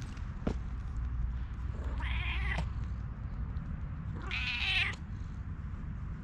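Tortoiseshell stray cat meowing twice, once about two seconds in and again about four seconds in, each call under a second long.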